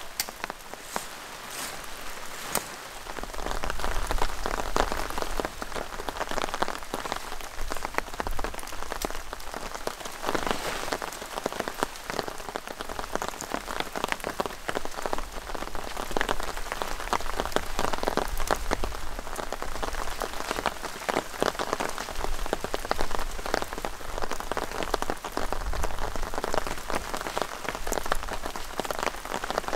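Steady rain falling, made up of many small drop ticks. Over it comes the rustle and crinkle of a pop-up tent's fabric being handled and pulled into shape.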